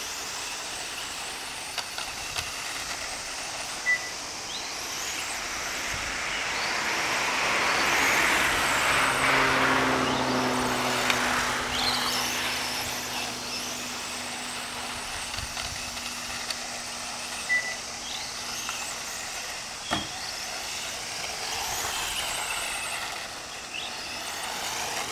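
1/10-scale electric RC Formula 1 car (TRG109) lapping a track: its motor whine rises in pitch on the straights and falls away into the corners, again and again. A steady low hum comes in for several seconds in the middle, along with a broad swell of noise.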